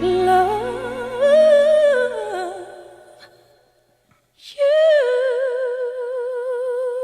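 A solo voice carrying a slow melody over soft backing music that fades away. After a brief pause about four seconds in, the voice holds one long note with vibrato, alone.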